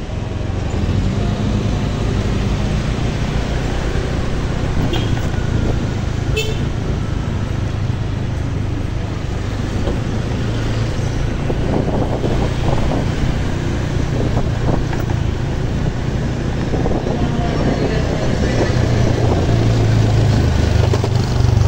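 Steady low engine and road noise from a motorcycle riding slowly in city traffic, with cars close alongside and ahead.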